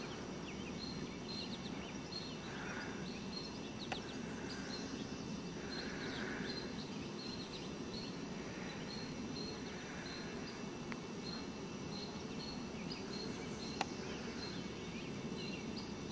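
Outdoor ambience: a steady low background hiss and rumble, with a faint high chirp repeating about twice a second and a couple of soft clicks.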